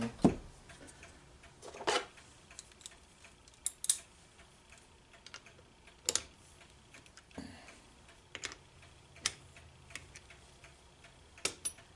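Scattered light clicks and knocks of metal vise parts being handled, about eight separate taps at uneven spacing.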